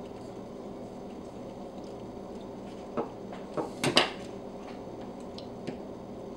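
A few sharp clicks and knocks of a small hex screwdriver being set down on a wooden tabletop, the loudest about four seconds in, over a faint steady background hum.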